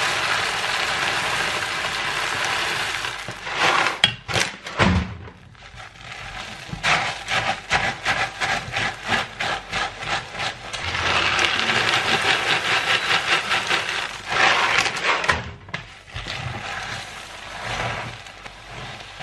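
Rolled oat flakes poured from a bag into a stainless steel pot of melted marshmallow make a steady rattling hiss for about three seconds. Then a spatula stirs and scrapes the sticky oat mixture against the pot in quick repeated strokes, about four a second.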